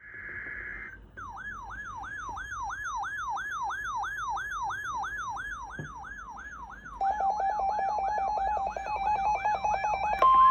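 Electronic alert alarms of NOAA weather radio receivers going off at a weekly test. A short steady beep leads into a warbling siren-like tone that sweeps up and down about three times a second. About two-thirds through, a rapid pulsed beeping joins it, and a loud steady tone starts just before the end.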